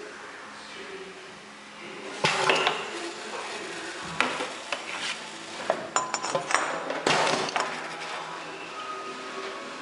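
Glass bottles clinking against one another and a stainless-steel table as a filled bottle is set down and an empty one is taken up. A run of sharp, ringing clinks comes between about two and eight seconds in, over a steady background hum.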